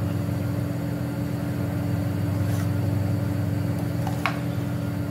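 A steady low hum from a running machine, with a light click of a metal spoon against the steel pot about four seconds in as the sausage meat is mixed.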